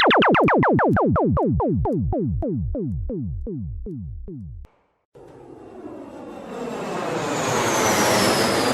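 Two stock sound effects. First, a synthesized effect of quick falling 'pew' sweeps, each dropping in pitch, that slow down and sink lower until they cut off after about four and a half seconds. After a short silence, an aircraft fly-by: a rush of noise that builds up with a high whine falling in pitch.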